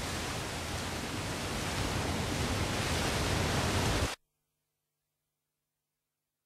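A steady rushing wash of noise from the film's soundtrack that grows a little louder, then cuts off suddenly about four seconds in.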